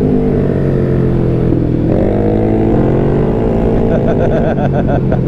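Motorcycle engine running at road speed, heard from the rider's seat; the engine note falls and then climbs again about two seconds in as it pulls away. Wind noise on the microphone runs under it.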